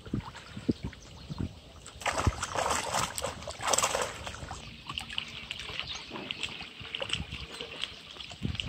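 Lake water splashing as a plastic bag is dipped and swished in it at the shoreline, in two surges about two and three and a half seconds in.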